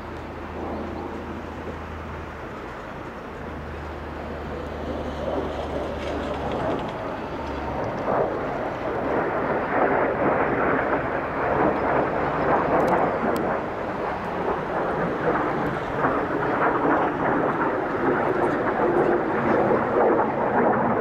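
Jet engine noise from aerobatic display jets flying overhead, a steady rushing noise that grows louder about eight seconds in and stays loud.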